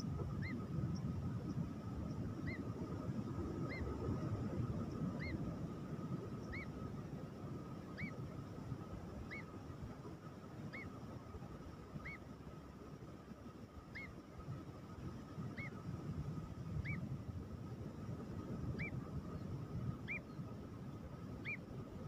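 A downy nightjar chick peeping over and over, one short rising-and-falling peep about every second and a half; the rescuer takes the chick to be weak and hungry. Under the peeps there is a low rumble of wind on the microphone and a faint steady high tone.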